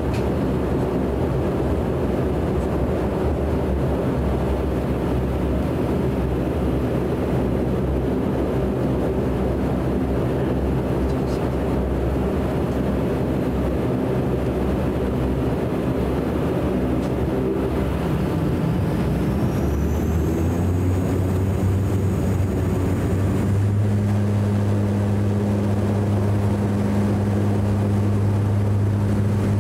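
Cabin sound of a DHC-8 Q400's Pratt & Whitney PW150A turboprop and six-blade propeller during the takeoff run: a steady engine and propeller drone. About two-thirds of the way in, a high whine rises and then holds, and a strong low propeller hum builds and stays to the end.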